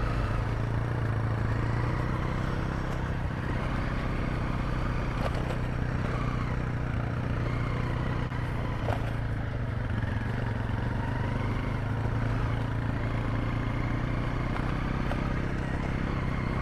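Honda CRF250L's single-cylinder four-stroke engine running steadily while riding, heard from a camera on the bike itself.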